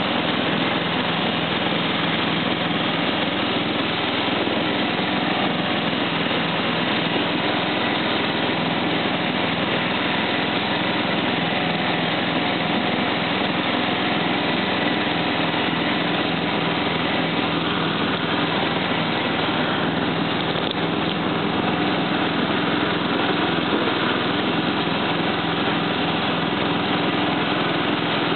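Simplicity 4211 lawn tractor's engine running steadily while the tractor is driven.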